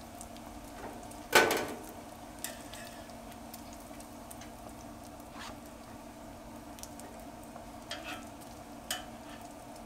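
Bacon sizzling on a flat-top griddle while metal tongs lift the strips off, with one loud clack of tongs against the griddle about a second and a half in and a few lighter clicks after.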